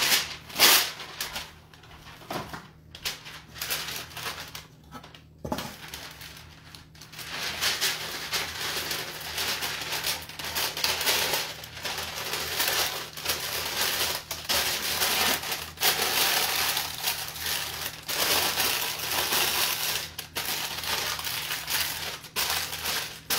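A sheet of baking paper being crumpled and crinkled in the hands, with one sharp crackle at the start, a quieter stretch of a few seconds, then near-continuous crinkling to line a round cake tin.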